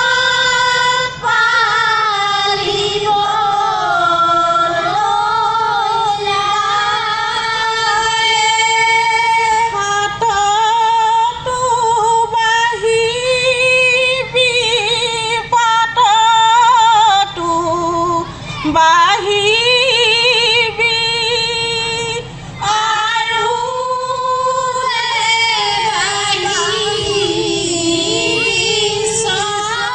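A group of women singing a traditional Moran kheri song together into microphones, in long held notes that glide and waver in pitch.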